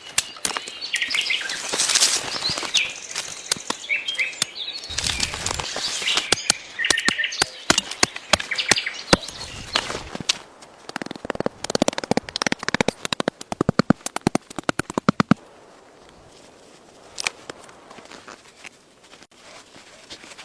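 Birds chirping, with a dense run of sharp clicks and crackles about halfway through.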